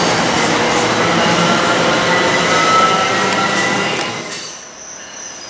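MARC bilevel commuter cars rolling past on departure, a loud steady clatter of wheels on rail with faint wheel squeal. About four seconds in it drops away abruptly, leaving a quiet background with steady high insect chirping.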